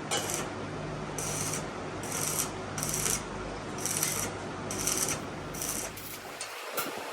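Hand rasping strokes in a steady rhythm, about seven in all, roughly one a second, like a file or abrasive being drawn back and forth over a workpiece. A steady low hum runs underneath.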